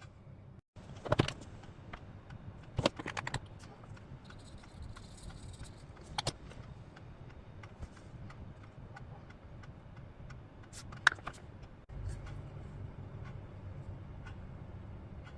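Quiet room hum with a few faint clicks and rustles, sharpest about a second in, around three seconds in and near eleven seconds.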